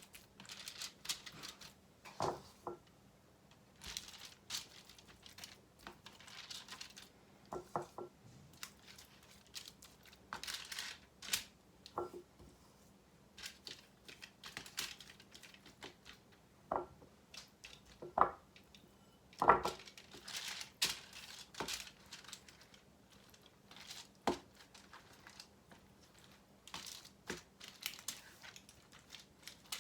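Aluminium foil crinkling and rustling in short bursts as raw chicken thighs are handled and turned on a foil-lined baking pan, with light clicks and knocks of kitchenware in between.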